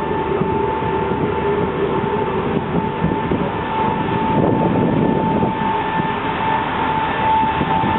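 Steady mechanical running noise with a constant high hum, swelling slightly about halfway through.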